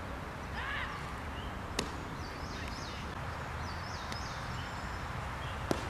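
Two sharp pops about four seconds apart: pitched baseballs smacking into the catcher's mitt. They sit over a steady outdoor background.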